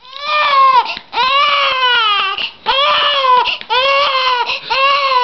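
Baby screaming while being burped: about five high, arching cries in a row, each up to about a second long, with quick breaths between.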